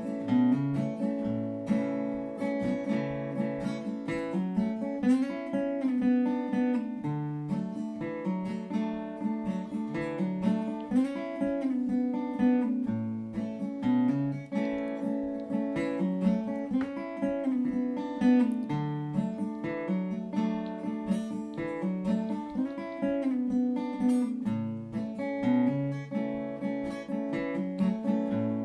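Solo acoustic guitar played without singing, an instrumental break in a country song: picked and strummed chords over bass notes that change every second or so.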